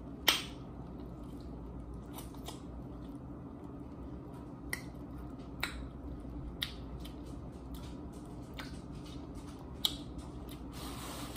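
A person eating chicken wings: scattered sharp mouth clicks and smacks from chewing and licking sauce off the fingers, the loudest just after the start.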